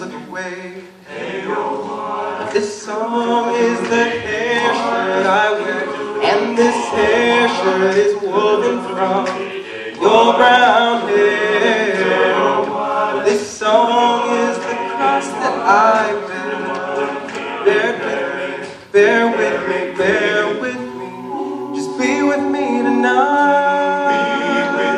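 All-male a cappella group singing in close harmony, several voices at once with no instruments.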